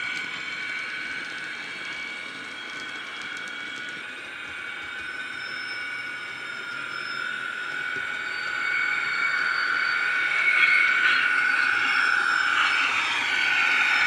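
Sound-decoder electric locomotive sound played through the small speaker of a model Heljan ES1 electric loco: a steady motor whine of a few held tones, with the pitch gliding in the last few seconds as the loco runs toward the camera and gets louder. A few light clicks sound near the start.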